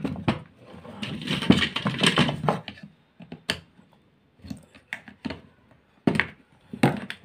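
Metal screwdriver scraping and clicking against the plastic brush-holder housing of a vacuum cleaner motor as the housing is pried apart. A rough scraping stretch in the first few seconds, then a handful of sharp separate clicks.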